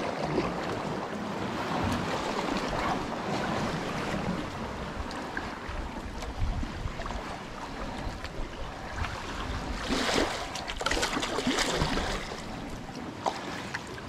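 Sea kayak paddle strokes dipping and splashing, with water slapping against the hull and rocks, over a low rumble of wind on the microphone. The splashing grows louder about ten seconds in.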